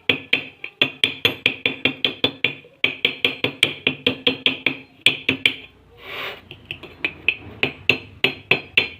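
Rapid metal tapping, about four to five sharp strikes a second, each ringing briefly with a clear pitch, as of a hammer on a horn's metal parts. A short hiss about six seconds in briefly interrupts the taps.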